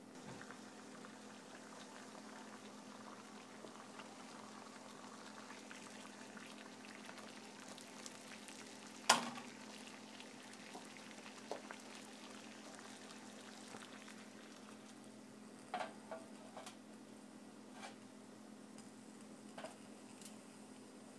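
Water boiling in a can-pot heated by a DIY soda-can alcohol stove: a faint, steady bubbling crackle. A sharp click comes about nine seconds in, with a few lighter clicks later.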